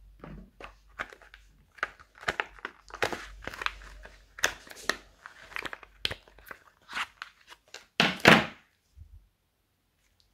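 Kinetic sand being squeezed and broken apart by hand: an irregular run of soft crunching and crackling as the packed sand crumbles, loudest about eight seconds in, then stopping.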